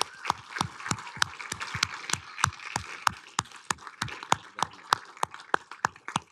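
Audience applauding, with one person's claps close by standing out as sharp, regular strokes about three a second over the haze of the crowd's clapping.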